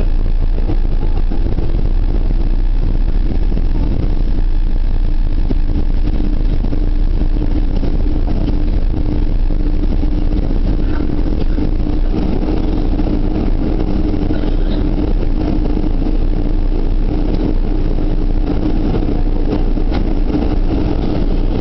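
Boeing 747-400's four jet engines running at low taxi power, heard inside the passenger cabin as a steady rumble with an even droning hum over it.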